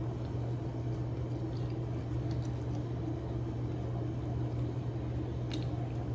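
A steady low hum with a few faint clicks and mouth noises of someone eating, the sharpest click about five and a half seconds in.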